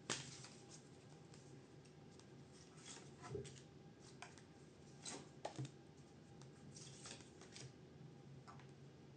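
Near silence with faint, scattered clicks and rustles of tarot cards being handled, a few soft snaps coming close together around the middle.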